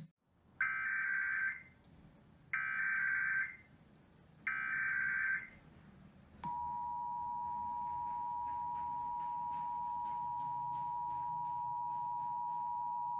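Emergency Alert System header: three one-second bursts of warbling data tones, about a second apart, then about six and a half seconds in the steady two-tone EAS attention signal starts and holds.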